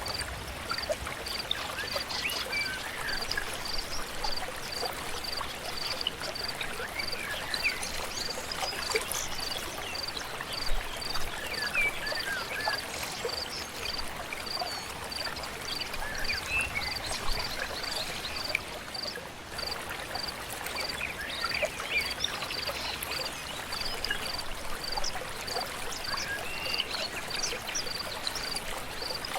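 River or stream flowing steadily, with songbirds chirping over it and a high, evenly repeated note about twice a second.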